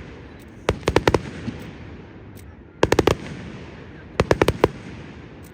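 Fireworks display: three quick volleys of sharp bangs, each a rapid string of four or five reports, about a second and a half apart, over a steady background hiss.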